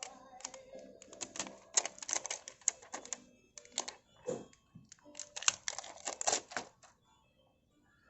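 Small metal and plastic parts of a tubeless tire repair kit clicking and clattering as they are handled, in several bursts of rapid clicks that stop about a second before the end.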